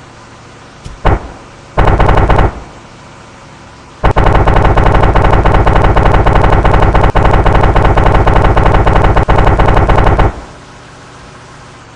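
Two-stroke engine idling with quick blips of the throttle, then held at high revs for about six seconds before dropping back to idle.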